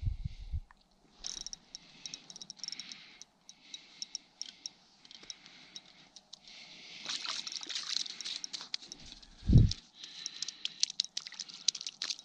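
Small clicks and crackles from a spinning reel, line and snow while a speckled trout is fought up through a hole in the ice and landed. The clicking gets busier partway through, with one dull thump about nine and a half seconds in.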